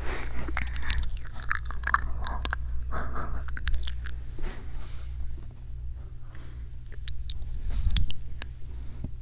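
Close-up ASMR trigger sounds into a 3Dio binaural microphone: quick, crisp, irregular clicks and crackles, thicker in the first half, over a steady low hum.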